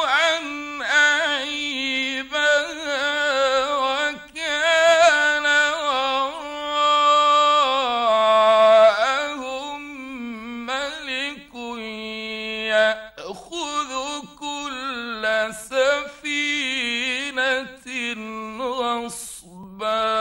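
A male Quran reciter chanting in the ornamented mujawwad style. He sings long, melismatic phrases with held and wavering notes, broken by short pauses for breath, on an old radio recording.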